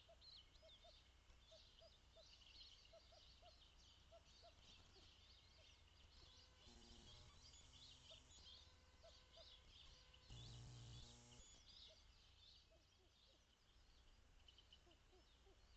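Faint chorus of many small birds chirping and singing, with two short, louder and harsher calls about a third of the way in and again past the middle.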